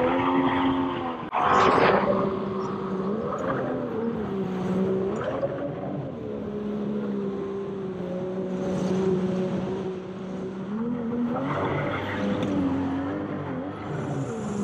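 Small outboard motor on an inflatable boat running under load through river rapids, its pitch rising and falling repeatedly with the throttle, over rushing whitewater. A loud burst of noise comes about two seconds in.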